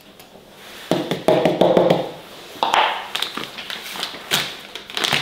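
Flour being emptied from a plastic measuring container into a stainless steel mixing bowl, with taps on the bowl that set it ringing briefly about a second in. A paper flour bag is then handled, giving sharp clicks and a crinkling rustle.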